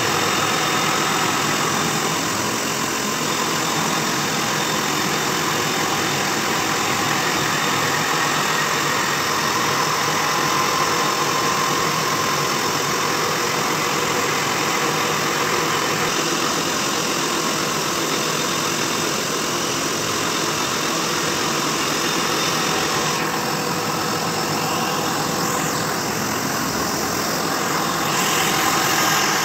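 Lathe-mounted tool-post grinder facing a spinning steel flywheel: a steady grinding noise of the abrasive wheel on the metal face, over the running belt-driven grinder motor and lathe.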